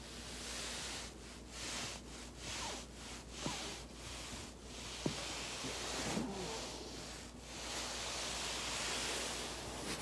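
Body rolling back and forth on a foam roller over carpet: a rustle and rub of clothing and foam that swells and fades with each roll, with a few faint clicks about three and a half and five seconds in.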